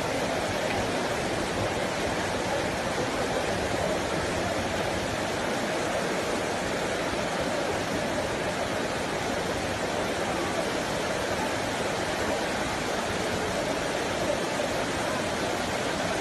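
Steady rushing water noise, even and unbroken, typical of flowing floodwater or heavy rain.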